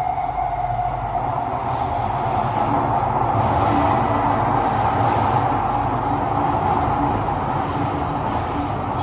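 SMRT C151B train running, heard from inside the carriage: a steady loud rush and rumble of wheels on rail. A high wheel-squeal tone dies away about a second in.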